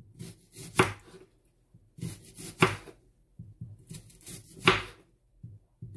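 Kitchen knife slicing an onion on a wooden cutting board: three sharp knocks of the blade on the board about two seconds apart, with fainter taps and cutting sounds between.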